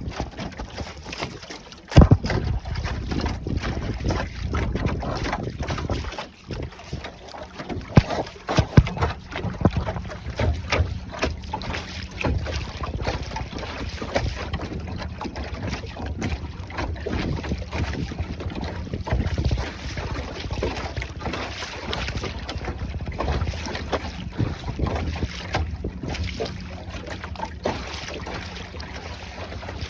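A boat's motor running underway, coming in suddenly about two seconds in, with wind buffeting the microphone and scattered knocks.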